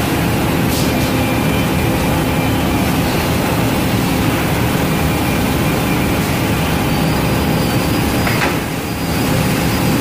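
Holztek Z63 multi-spindle cam-lock boring machine running steadily, with a brief sharp knock about a second in and another near the end as it cycles on a panel.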